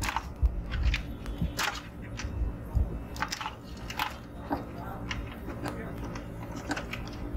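Scattered clicks and rattles of plastic wire-harness plugs being pulled from the sockets of a Godex BP700 label printer's mainboard, with hands handling the board; most of the clicks come in the first half.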